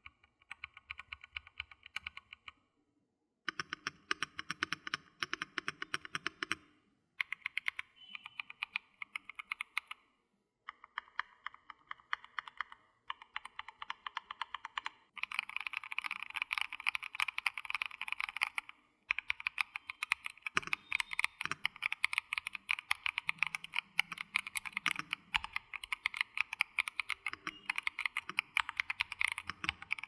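Typing on an EPOMAKER TH80 SE gasket-mounted, foam-dampened mechanical keyboard with pre-lubed Epomaker Flamingo linear switches. The keys go down in quick runs with short pauses between them, and the typing turns faster and denser about halfway through.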